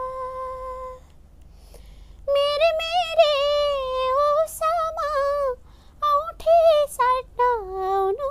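A woman singing a Nepali folk melody with no accompaniment. A held note ends about a second in, and after a short pause she sings long, wavering, ornamented phrases.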